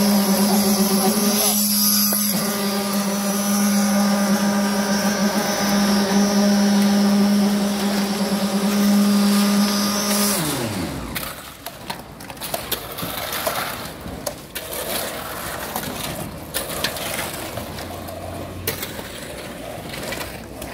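A machine motor running with a steady high hum on a concrete-pour site, winding down to a stop about ten seconds in. After that, quieter scattered knocks and clatter of work on the slab.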